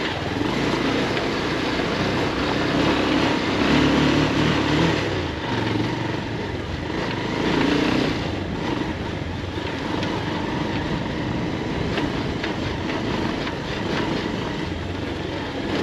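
Bajaj Pulsar 220F motorcycle's single-cylinder engine running while the bike rides a rough dirt road. It gets louder for a moment about four seconds in and again near eight seconds.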